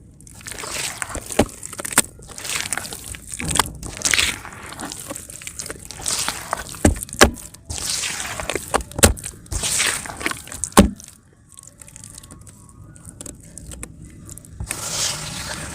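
Lumps of multani mitti (fuller's earth clay) crumbling and dropping into water: a wet hissing fizz broken by several sharp cracks and splashes. It grows quieter after about eleven seconds.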